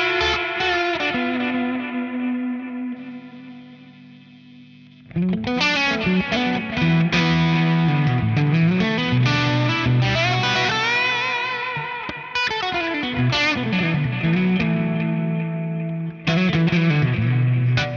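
Electric guitar played through the GFI System Orca delay pedal with some drive: notes ring and fade away over the first few seconds, then about five seconds in a new phrase starts with bending, wavering notes trailed by delay repeats.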